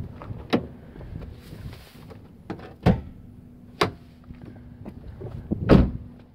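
Door of a 2004 Chevrolet Impala SS being opened and shut: latch clicks and knocks, ending in a heavy thud near the end as the door closes.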